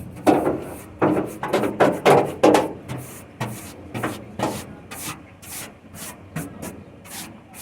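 Irregular scraping and rubbing strokes, a few each second, from working screws out of a van bed frame.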